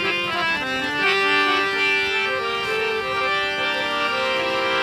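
Harmonium playing a melodic instrumental interlude between sung lines of a Gujarati devotional song, held notes moving step by step.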